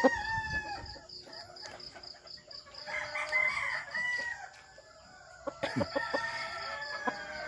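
Gamefowl roosters crowing: a shorter call about three seconds in, then a long drawn-out crow near the end that slowly falls in pitch. A faint, rapid high pulsing runs underneath.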